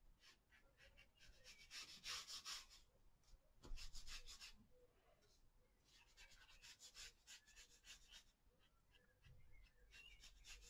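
Faint, scratchy strokes of a small watercolour brush, on wax-resisted paper and in the paint palette, in short spells with pauses between them, with one soft knock a little under four seconds in.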